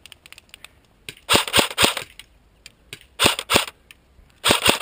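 CYMA CM.028 AK47 electric airsoft rifle firing three short bursts of several rapid shots each. The first comes about a second in, and the next two follow about a second and a half apart.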